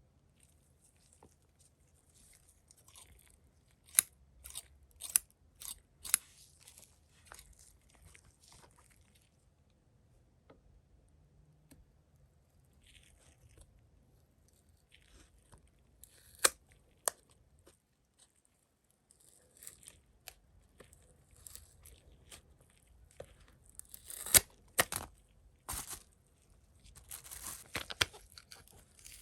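Plastic and cardboard packaging of a flash drive being handled and opened, with sharp clicks and snaps in several clusters and crinkling and tearing near the end.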